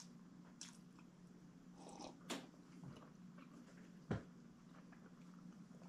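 Faint eating sounds: a few soft scattered clicks and mouth noises, with a sharper tap about four seconds in, over a low steady hum.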